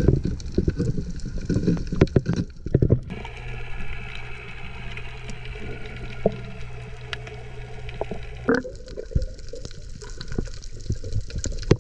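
Underwater sound picked up by a camera on a reef dive: moving water with frequent short clicks and crackles, and a steady low hum from about three seconds in until past the middle.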